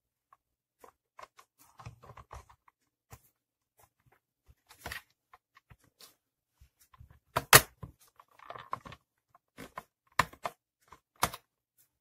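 Plastic handle housing of a steam iron being handled and fitted onto the iron body: irregular clicks, taps and rustles, with the sharpest knock about halfway through and a few more near the end.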